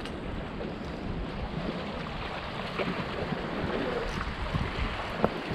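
Sea surf washing against a rock jetty, with wind buffeting the microphone, and a single sharp tick about five seconds in.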